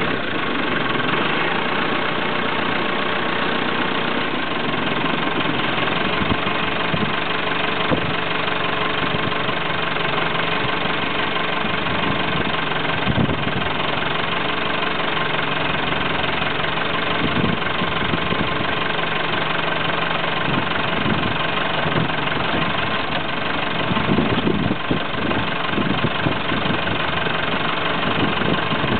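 JCB 215E backhoe loader's diesel engine running steadily, with a few short clunks now and then.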